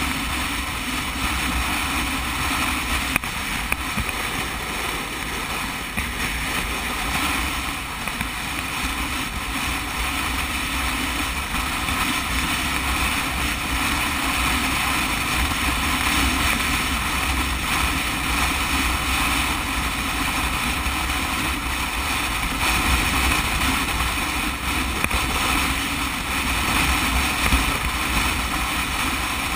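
Sport motorcycle cruising at a steady speed: wind rushing and buffeting over the camera microphone, with the engine's drone and tyre noise underneath.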